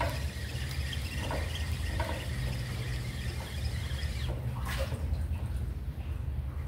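A steady low hum, with a short splash about four and a half seconds in as a baited fishing rig drops into the water.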